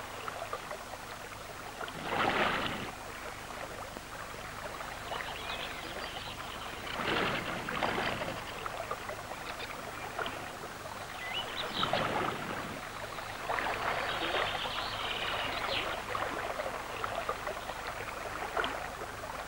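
Shallow, rocky river running over stones: a steady rush of water that swells louder several times.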